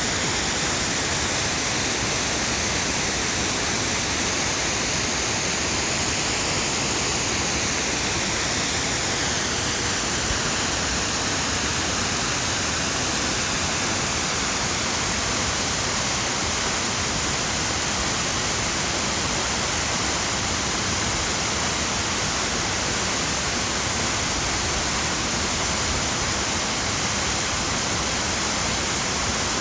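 Waterfall heard from the foot of the falls: falling water making a steady, even hiss that stays at one level, strongest in the higher tones.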